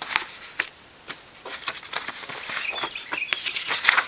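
Sheets of printer paper handled and shifted by hand: irregular light crackles and rustles.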